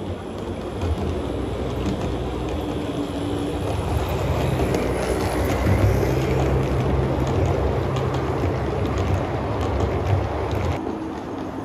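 HO-scale model trains running on the track: a steady motor hum and wheel rumble. It grows louder from about four seconds in as a passenger train rolls past close by, and eases off near the end.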